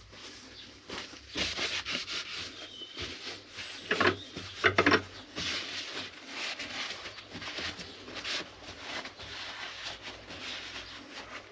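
Irregular clicking, rubbing and knocking of tools or parts being handled in a workshop, with a few louder knocks about four to five seconds in.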